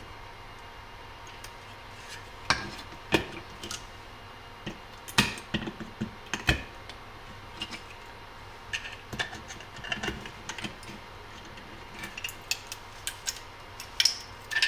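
Irregular clicks, taps and knocks of hand tools and a hard 3D-printed plastic part being handled and worked on a workbench, with a few louder knocks a few seconds in.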